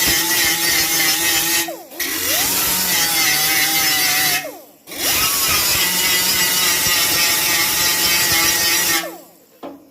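Angle grinder sanding steel, run three times: each time the motor spins up to a steady high whine over a rough grinding hiss, then winds down. The last run is the longest, about four seconds.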